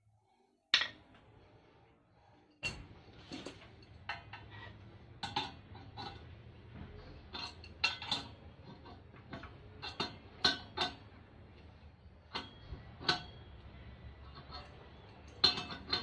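Spanner and steel gear puller clinking against each other and the engine's drive pulley as the puller is worked to draw the pulley off: a string of irregular sharp metal clinks, the loudest about a second in and near the end.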